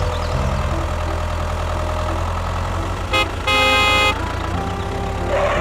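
An engine running steadily, with two horn toots just after three seconds in, a short one and then a longer one.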